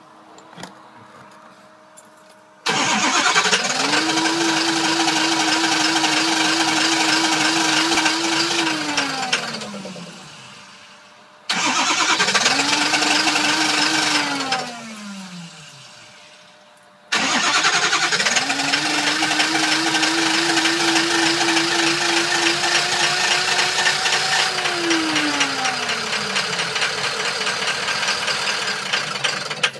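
Ford 6.0 Powerstroke diesel engine in three start attempts: each time it spins up, holds a steady pitch for several seconds, then winds down and dies, the second attempt the shortest and the third the longest. It is a no-start and stall: injection control pressure builds enough to start but the engine won't keep running.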